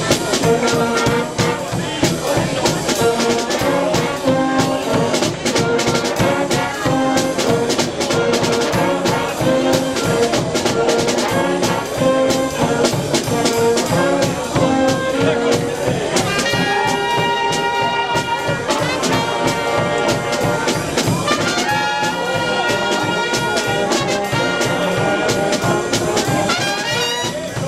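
A joekskapel (Limburg brass street band) playing a lively tune: trumpets, trombones and sousaphones over a steady bass drum and snare beat. Twice in the second half, the horns hold long notes.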